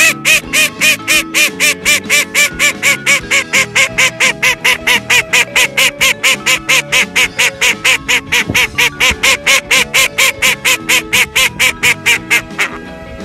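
White domestic duck quacking in a rapid, unbroken series, about four quacks a second, stopping shortly before the end, with background music underneath.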